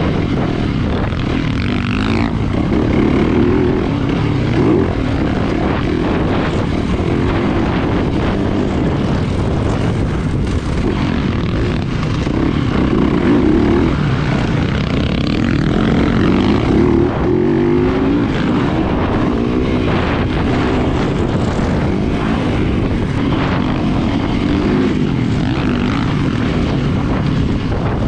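Yamaha YZ450FX's single-cylinder four-stroke dirt-bike engine being ridden hard, revving up and dropping back again and again as the throttle is worked through the turns, over constant wind and road noise.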